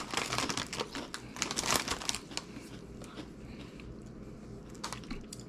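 A crinkly Bugles snack bag rustling as a hand digs inside it for chips, busiest in the first two seconds, then dropping to faint, scattered crinkles.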